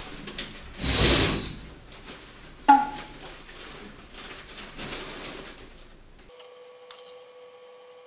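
Heavy curtain fabric rustling in one short swish as someone slips behind it, followed by a single sharp knock. Near the end the sound cuts abruptly to a steady electrical hum with several even tones.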